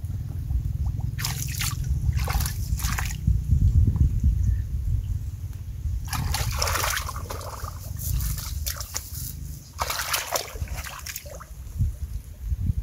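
Shallow water sloshing and splashing in several short bursts as someone moves through it, over a steady low rumble.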